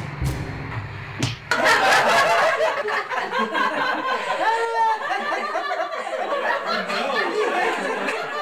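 People laughing, a man and a woman among them, with overlapping laughter that starts suddenly about a second and a half in and keeps going.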